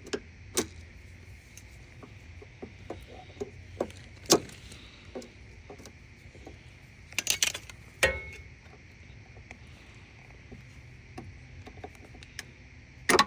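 Metal washer parts and hand tools clinking and knocking as the machine is taken apart to reach the clutch: scattered sharp clanks, one about eight seconds in leaving a brief ring.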